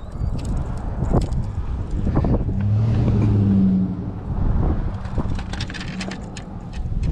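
Outdoor wind rumbling on the microphone while a hand-held black drum is moved about against granite rocks, with light scrapes and clicks. From about two and a half to four seconds in, a low steady hum stands out.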